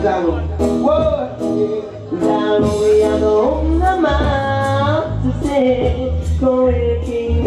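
A sound system playing a record: singing over a heavy bass line, with a drum hit about once a second.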